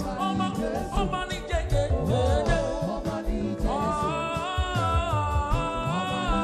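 Gospel praise music: a band with bass and drums and a singing voice. A little past halfway the voice holds long notes.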